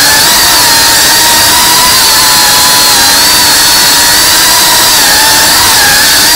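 Cinewoop FPV drone's brushless motors and ducted propellers whining with a loud hiss, the whine wavering slightly in pitch, dipping about three seconds in and again near the end.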